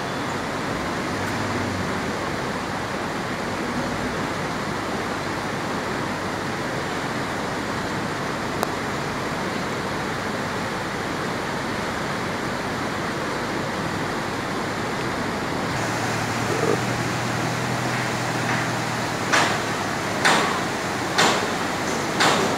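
Steady rush of river rapids mixed with the distant running of heavy machinery. After an abrupt change, a low hum and four sharp knocks, roughly one a second, near the end.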